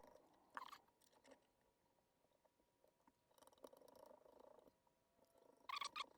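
Near silence with faint handling noises: a couple of light clicks and a soft rustle of small parts being fitted during bench reassembly of a small radio transceiver.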